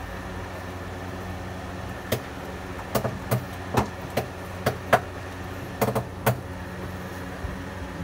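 Bee smoker puffed about eight times in short sharp bursts, over a steady low hum.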